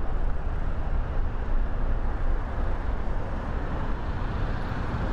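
Steady wind rush over the microphone and tyre noise from riding an electric bike at speed, a constant low rumbling hiss.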